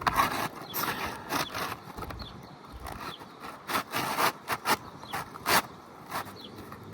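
An Owens Corning Driftwood asphalt shingle being slid and worked into place under the course above, with irregular scrapes and rubbing against the surrounding shingles and a few sharp knocks. The loudest scrapes cluster about a second in and again between three and a half and five and a half seconds in.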